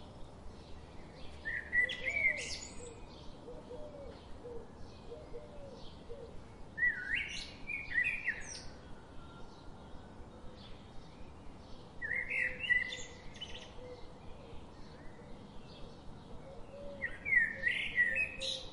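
A songbird singing a short, bright phrase about every five seconds, four phrases in all, over faint rapid ticking.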